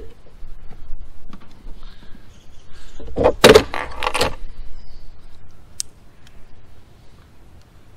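Hand tools and small metal parts being handled: rustling, then a clatter of several knocks about three seconds in, and a single sharp click near the end.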